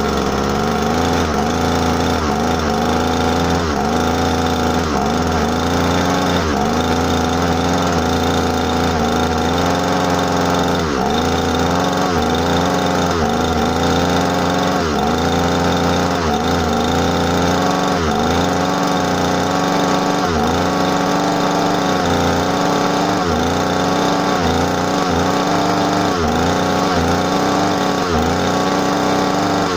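JCB M25 two-stroke grass strimmer engine running, its speed dipping and picking up again about once every second or so. The uneven running goes with a faulty throttle assembly, which the owner has to pull down to keep the engine going; he thinks it needs a new one.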